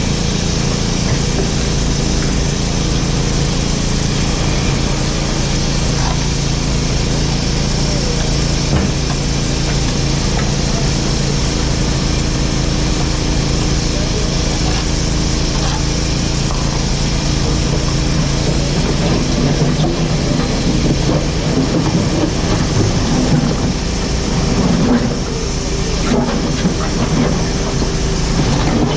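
JCB 4CX backhoe loader's diesel engine running steadily while working, its note wavering in the last third.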